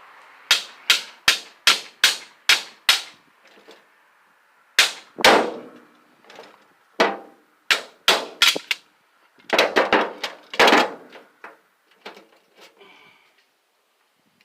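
Hammer blows on a makeshift steel punch cut from an old bed frame, tapping out the small holes of an electric motor. A quick run of about seven sharp metallic strikes, then more strikes in uneven groups.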